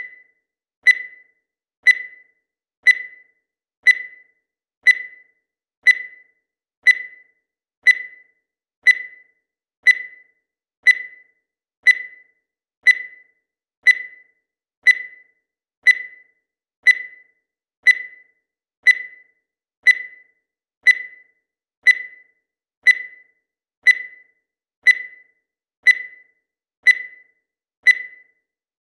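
Digital timer beeping once a second: short, high-pitched beeps that start sharply and fade quickly, with silence between each, counting off the seconds.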